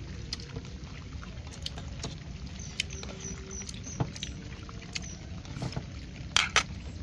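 Bamboo chopsticks clicking lightly against ceramic rice bowls, with two sharper clicks near the end, over a steady low rumble. A quick run of five faint high chirps comes about three seconds in.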